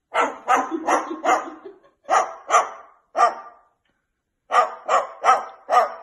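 A white cockatoo mimicking a dog's bark: about a dozen short, sharp barks in three bursts with brief pauses between them.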